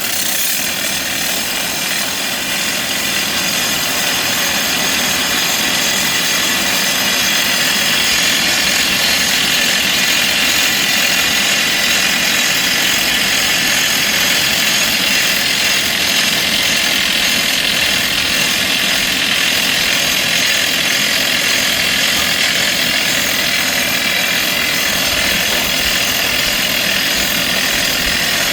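Heavy construction machinery running steadily, a loud continuous engine noise with a high whine, getting a little louder over the first several seconds.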